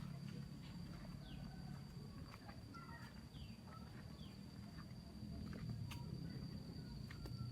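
Faint outdoor ambience: a steady high-pitched drone with scattered short falling chirps and a low hum underneath.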